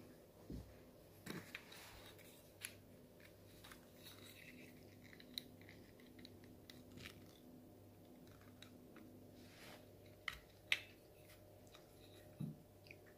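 Faint scattered clicks and taps of a plastic PEZ candy dispenser being handled: its head clicking back and forth and the plastic knocking lightly on a tabletop, with a sharper pair of clicks about two-thirds of the way in.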